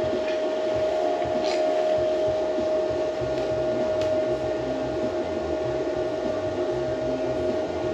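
Hynade MTS155 FX flux-core welder's cooling fan running, a steady whir with a constant whine.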